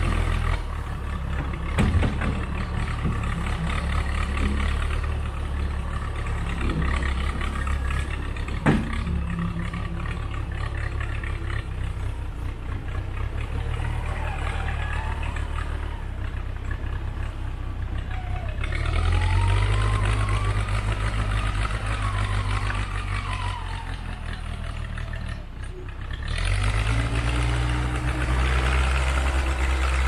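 Case 580C backhoe loader's engine running under load as the front bucket shoves a tree stump over, with sharp knocks about two and nine seconds in. Partway through a whine rises and falls, and near the end the engine note rises as the machine backs off.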